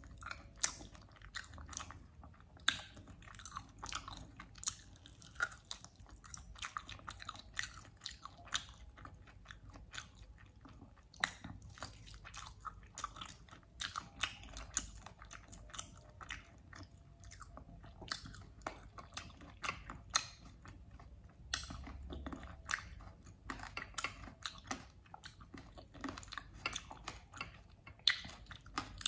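Close-miked eating: a person biting and chewing meat off a sweet-and-spicy mutton chop, with many sharp, irregular mouth clicks throughout.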